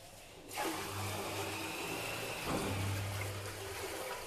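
Water poured from a plastic bucket into a new one-piece ceramic toilet bowl, a steady splashing rush that starts about half a second in. The bowl is being filled as a leak test of the freshly set floor-mount toilet.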